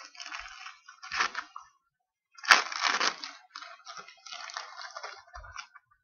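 Crinkling and rustling of packaging or paper as small craft embellishments are handled, in irregular bursts with a sharp crackle about two and a half seconds in.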